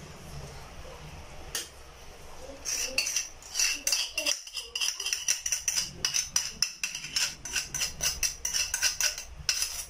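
A kitchen utensil scraping and tapping against a bowl in quick, repeated strokes as melted lard is scraped out into a frying pan. The strokes start about three seconds in and carry on until just before the end.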